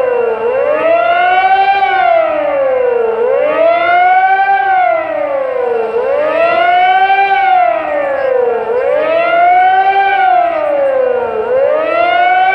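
Civil defence sirens wailing, the pitch rising and falling in a slow, even cycle about every three seconds. This is the siren signal sounded in Polish cities for 'Godzina W', marking the outbreak of the 1944 Warsaw Uprising.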